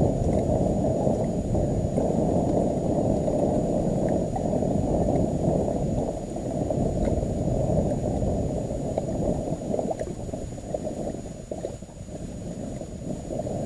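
Low, steady rushing and gurgling of lake water around a fishing boat's hull, easing off somewhat in the second half.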